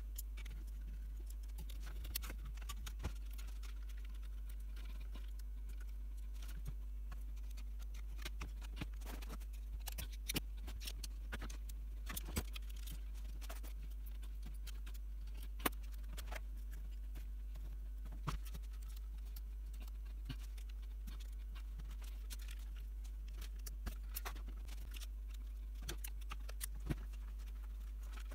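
Small metal hardware and tools clicking and tapping on the bench as a power-supply case is assembled by hand: irregular light clicks over a steady low hum.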